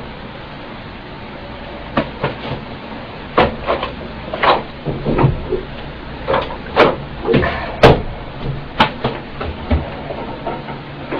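Hair dryer blowing steadily, with scattered sharp knocks and clicks from about two seconds in.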